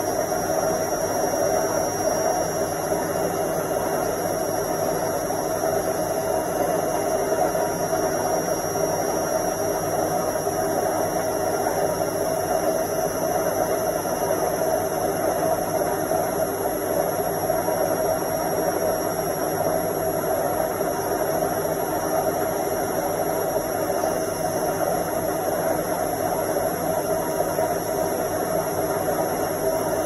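Indesit front-loading washing machine on its spin cycle: a steady whir and hum from the spinning drum and motor, with a thin high whine over it.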